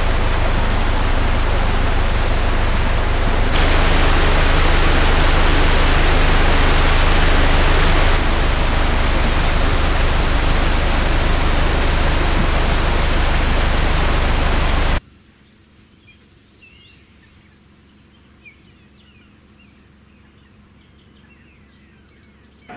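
Loud, steady rushing of water in a canal lock, with a low steady hum underneath; it grows louder about four seconds in. About fifteen seconds in it cuts off abruptly to a quiet canal bank with faint bird chirps.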